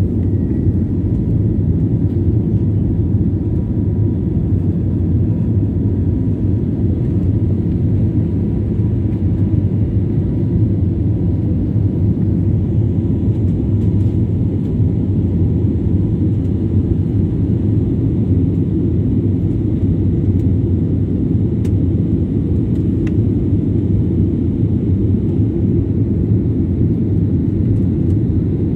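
Steady low cabin noise of an Airbus A320-family airliner climbing after takeoff: jet engine and airflow noise heard from inside the passenger cabin, with a faint high whine over it through about the first half.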